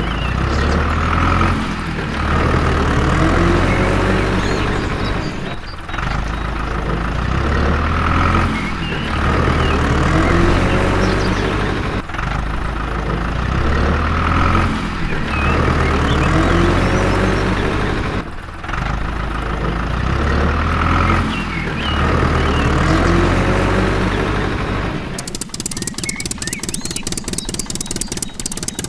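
A heavy vehicle's engine, revving up and settling back in a loop that repeats about every six seconds. Near the end it changes to an engine idling with rapid, even pulses.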